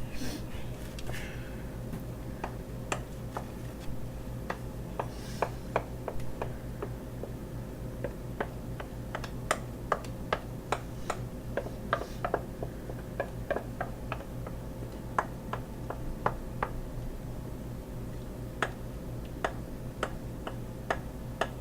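Light, uneven clicks and taps of a kitchen utensil against a mixing bowl as cheesecake filling is scooped out, over a steady low hum.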